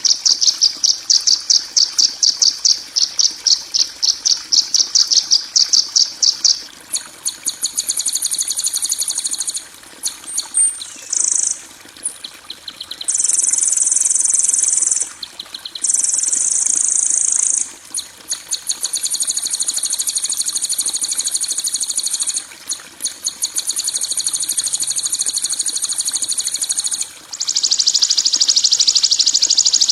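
Bird-training tutor recording of harsh, high-pitched calls: a fast pulsed chirping at about five pulses a second for the first six seconds, then a string of separate buzzy trills and long unbroken buzzes, with another long buzz starting near the end.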